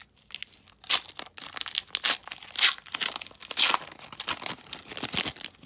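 Foil trading-card pack wrapper being torn open and crinkled by hand: irregular crackling with several sharp, loud rips of the foil.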